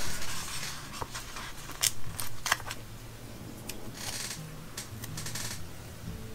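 Planner stickers being peeled off a paper sticker sheet and handled, with a few scattered light rustles and clicks.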